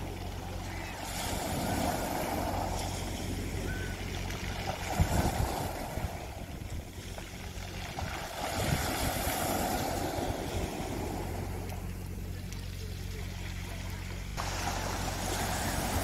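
Small waves breaking and washing over a pebble beach, surging and drawing back every few seconds. A steady low hum runs underneath.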